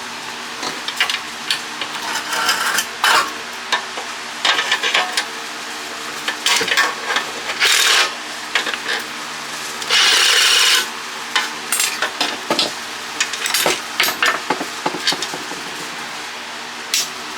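Metal pump parts being worked apart with hand tools: scattered clicks, clinks and short rasping scrapes, with a longer scrape about ten seconds in. A steady hum runs underneath.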